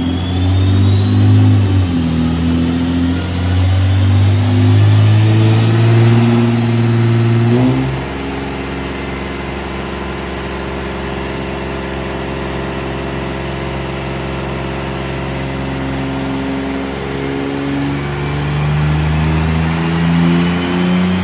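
Holden VN Commodore's 3.8-litre V6, stock apart from a cat-back exhaust, pulling at full throttle on a chassis dyno, with a high whine rising steadily as speed builds. About 8 s in the throttle closes and the engine drops to a quieter, steady run, then it builds and rises again near the end.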